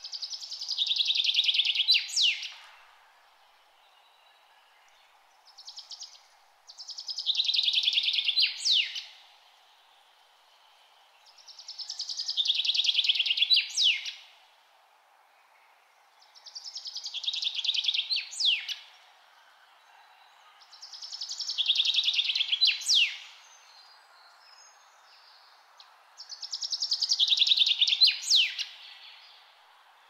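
A songbird singing the same short song six times, once every four to five seconds. Each song is a trill of about two seconds that falls in pitch and ends in a sharp flourish, over a faint steady background hiss.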